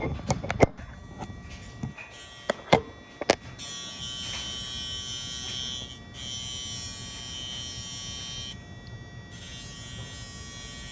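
Casfuy electric pet nail grinder running with a steady motor buzz; from about three and a half seconds in, a harsher high grinding sound joins as the rotating file is pressed against a puppy's nail, easing off briefly twice as it is lifted away. A few sharp clicks sound in the first few seconds.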